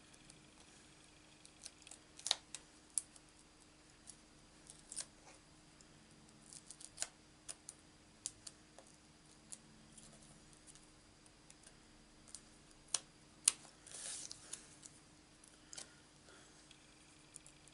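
Faint scattered clicks and taps of small die-cut paper pieces and a mini foam dimensional being handled and pressed down on a craft mat, with a brief rustle of paper about fourteen seconds in.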